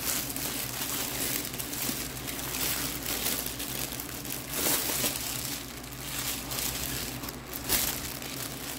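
Clear plastic bag crinkling and rustling in irregular bursts as a rolled canvas is pulled out of it, over a steady low hum.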